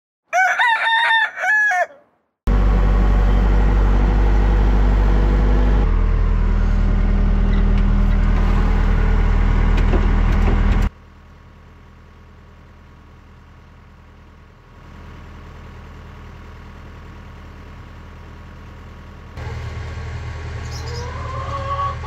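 A rooster crows once, a call of nearly two seconds. It is followed by a loud, steady low rumble with a hum that lasts about eight seconds and stops abruptly, then a much quieter steady background.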